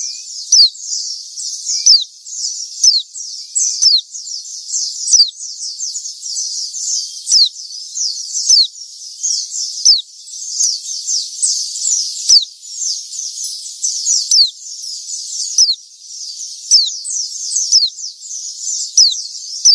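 White-eye (pleci) singing vigorously: a dense, unbroken stream of fast, high, thin chirps, with a louder downward-sweeping note about once a second.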